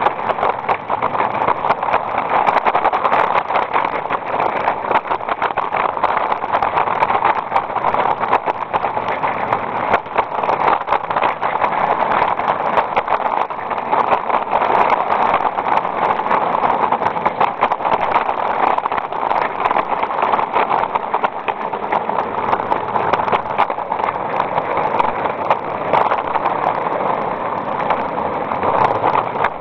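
A 16mm-scale live-steam garden railway train running on 45mm-gauge track, heard from on board: a steady rushing noise with many small clicks throughout.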